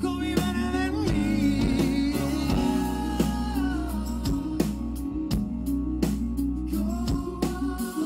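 Live rock band playing: electric guitar, bass and drum kit on a steady beat, with a held melody line that bends and wavers over the top in the first half.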